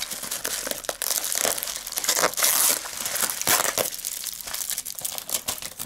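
Bubble-wrap packet crinkling and crackling as it is turned in the hands and its packing tape is pulled off, in irregular bursts that are loudest a little after two seconds in.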